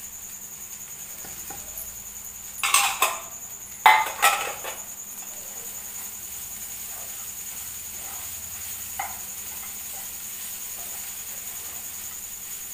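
Kitchen utensils clattering against a frying pan of poha: two loud bursts of knocks about three and four seconds in, then only light taps and scraping of a spatula stirring.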